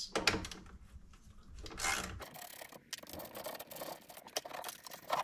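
Ratchet wrench with a 3/8 socket clicking rapidly as it backs out the bolts holding a car stereo in the dash, mixed with some rubbing and scraping.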